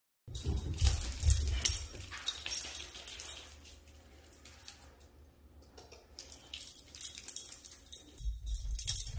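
A puppy moving about and jumping around, with rustling and clicking of movement for the first few seconds and again near the end, quieter in between.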